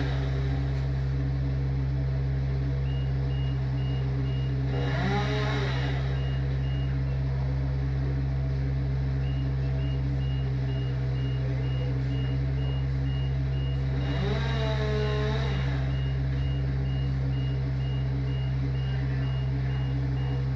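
A heavy work vehicle's engine running steadily while its reversing alarm beeps at an even rate. The beeping starts a few seconds in, stops briefly, then resumes.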